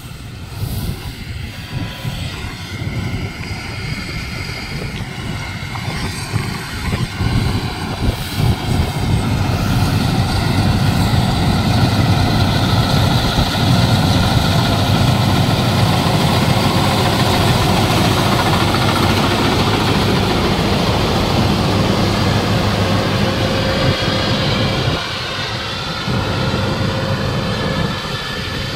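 Rice combine harvester running at work, its engine and threshing machinery cutting lodged rice. It gets louder from about ten seconds in as the machine comes close, then drops back somewhat near the end.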